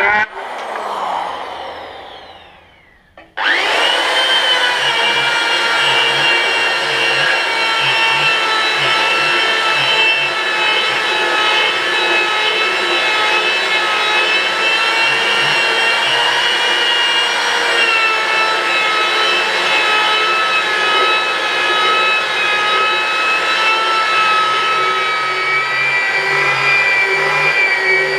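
A power tool's motor winds down to a stop, then about three seconds in an electric belt sander starts abruptly and runs steadily as it is worked along a rough-sawn board.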